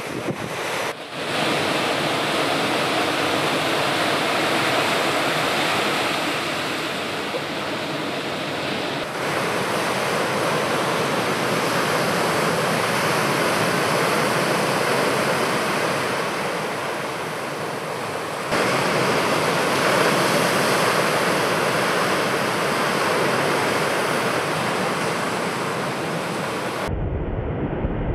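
Ocean waves breaking and the rushing hiss of white water, a steady wash of surf noise that shifts abruptly in tone a few times. Near the end it gives way to a duller low rumble.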